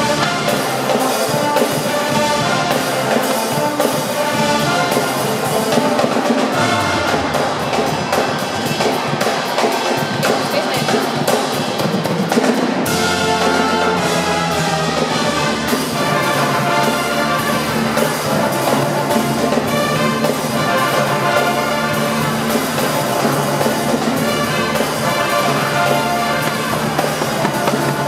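College pep band playing a brass tune: trumpets, trombones and sousaphones over a drum kit.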